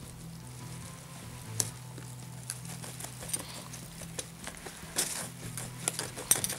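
Kitchen knife cutting through a whole fish's tail and backbone on a wooden cutting board: scattered knocks and taps of the blade against the board, with a few close together near the end.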